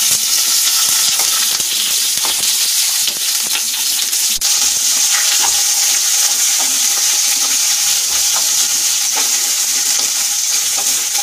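Chunks of onion sizzling steadily in hot oil in a nonstick kadai, stirred with a wooden spatula that knocks and scrapes against the pan now and then.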